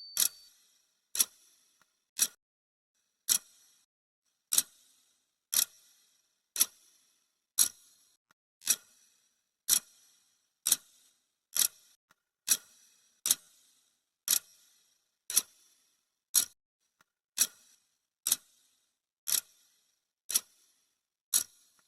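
Clock-tick sound effect of a countdown timer, a sharp tick about once a second.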